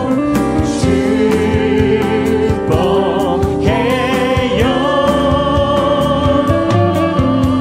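A Korean praise and worship song sung live by two men and a woman into microphones, several voices in harmony holding long, wavering notes over a band accompaniment with a steady beat.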